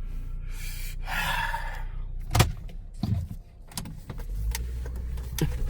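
Car cabin noise while driving: a steady low engine and road rumble that grows louder about four and a half seconds in, with a short hiss about a second in and a few sharp clicks.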